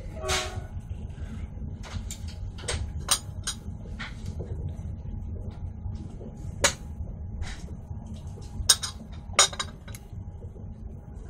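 A moving passenger train heard from inside the carriage: a steady low rumble, with irregular sharp clicks and rattles, the loudest about two-thirds of the way through. A short pitched squeak right at the start.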